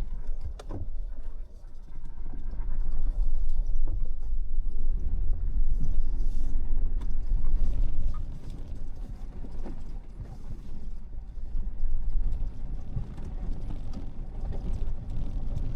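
Tank 500 SUV crawling slowly down a rough, rocky dirt track: a steady low vehicle rumble with scattered knocks, creaks and rattles as the suspension and body work over stones.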